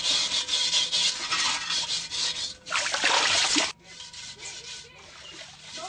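Harsh rasping, scraping noise that starts suddenly, loud for about two and a half seconds, loud again for about a second from three seconds in, then fainter.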